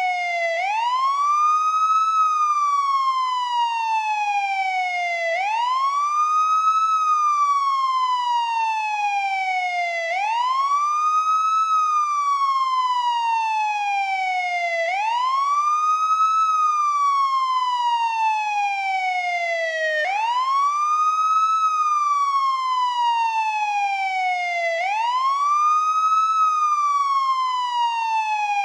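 American police car siren on the traditional wail tone: the pitch climbs quickly, then slides slowly back down, over and over, about once every five seconds.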